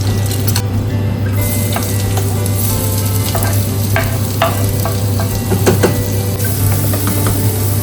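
Food frying and sizzling in a pan while being stirred, with several sharp clicks of the utensil against the pan about halfway through and a steady low hum underneath.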